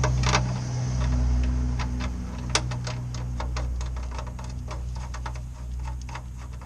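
Ratchet wrench clicking in light, quick ticks, a few a second with one sharper click about two and a half seconds in, as the oil drain plug with its new gasket is run in. A steady low hum runs underneath.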